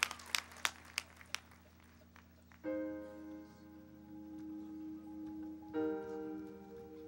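Scattered applause dies away in the first second or so; after a short hush a marching band comes in with soft, sustained chords, and a new, louder chord enters about six seconds in.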